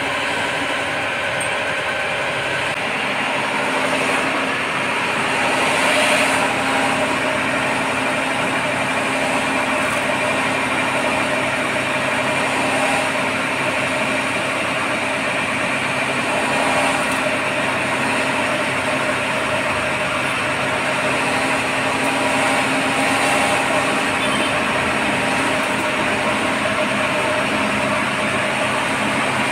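Electric wet grinder running steadily, its motor humming under a constant grinding noise as it grinds idli-dosa batter.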